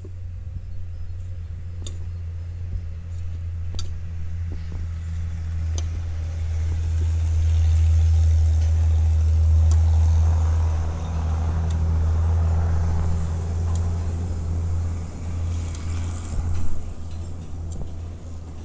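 A low motor-vehicle engine hum that swells to its loudest about halfway through and then fades. A few faint knocks come in the first few seconds.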